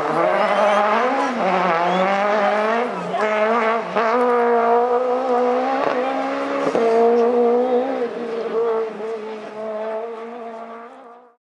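Rally car's engine heard from the hillside, revving up and dropping back again and again as it changes gear and brakes for corners along the stage. It fades away over the last few seconds and then cuts out.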